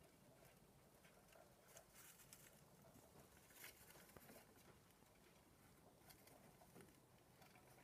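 Near silence with faint, scattered light scratching and ticking of pet mice moving about in wood-shaving bedding and a wooden log tunnel.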